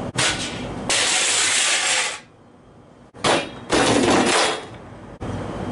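Clattering and scraping as gear is set down on a concrete patio: a coiled cord and a metal-legged table. The noise comes in a few loud bursts of about a second each, which start and stop abruptly.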